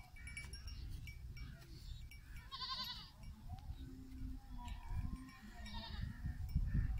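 Goat bleating twice, two quavering calls about two and a half seconds in and again near the end, over a low rumble.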